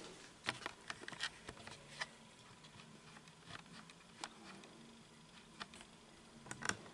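A few faint, scattered light clicks and taps, the loudest pair near the end.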